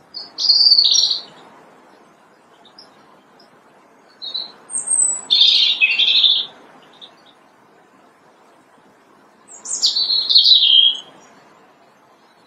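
European robin singing: three short, high, twittering song phrases, about a second or two each, separated by pauses of three to four seconds.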